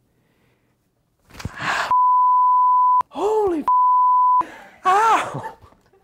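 A young man yells in loud drawn-out cries, and two flat beeps of a censor bleep cut over his words. The first bleep lasts about a second and the second is shorter.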